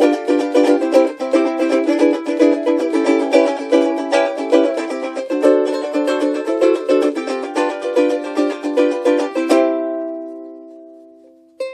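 Bruko No.1 all-solid maple flat-body travel ukulele being played in a quick, busy rhythm. About nine and a half seconds in, it stops on a chord that rings and fades out; playing starts again at the very end.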